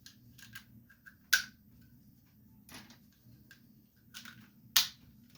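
3D-printed plastic spool-holder parts clicking against each other as they are fitted back together by hand: a scatter of small ticks, with two sharp clicks about a second in and near the end.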